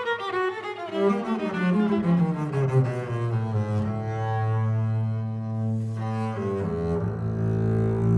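Bowed double bass and viola playing chamber music: the bass holds long low notes while the viola moves through a line above.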